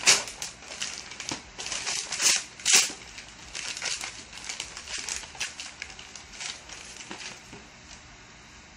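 A gift bag being torn open and crumpled by hand: a run of crinkling and ripping, loudest in the first three seconds, then thinning out and fading near the end.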